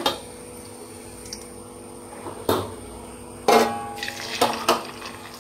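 Kitchen clatter: about five sharp metallic clinks and knocks of utensils against a steel bowl and the frying wok, the loudest about three and a half seconds in, as battered cauliflower goes into the oil for deep-frying. A steady hum runs underneath.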